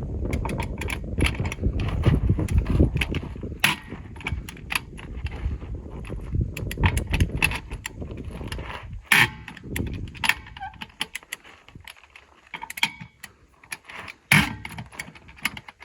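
Sharp metallic clicks and clanks of a ratchet and wrench working the wheel nuts of a Unimog truck wheel, cracking them loose. A low rumble sits under the clicks for roughly the first half.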